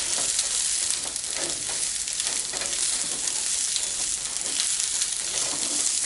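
Sliced onions sizzling in a hot frying pan while a spatula keeps stirring and scraping them, on their way to caramelizing. Steady crackling sizzle with small scrapes from the spatula throughout.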